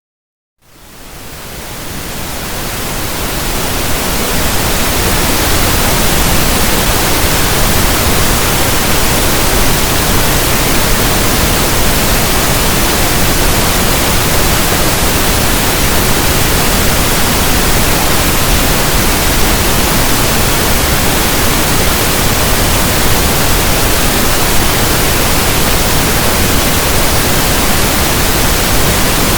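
Electronically generated pink noise: a steady, even static hiss like a radio tuned between stations. It fades in over the first few seconds.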